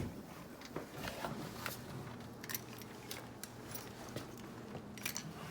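Scattered light clicks and small rattles from wiring and metal cabinet parts being handled while a dryer is put back together, with a sharper click right at the start as the door switch connector is pushed on.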